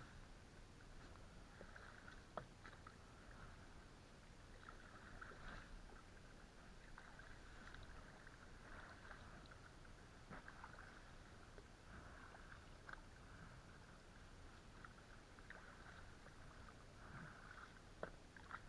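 Faint, irregular water swishing from an inflatable boat being paddled quietly along a flooded river, with a few light knocks scattered through.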